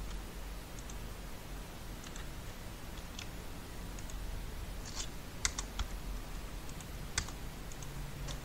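Scattered clicks of a computer mouse and keyboard, the sharpest few coming about five to seven seconds in, over a faint low hum.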